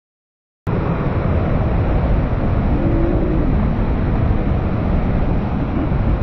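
Loud, steady rush of a swollen river pouring over rocks in white water, starting abruptly a little under a second in.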